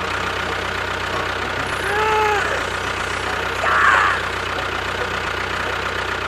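Small engine running steadily at idle with an even low rapid chugging. A short tone rises and falls about two seconds in, and there is a brief louder burst about four seconds in.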